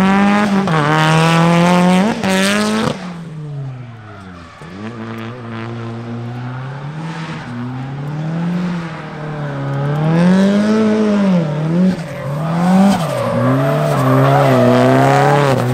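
Drift car's engine revving hard, its pitch climbing and dropping over and over with the throttle, with tyres squealing as it slides through the course. The engine falls away briefly about four seconds in, then builds again.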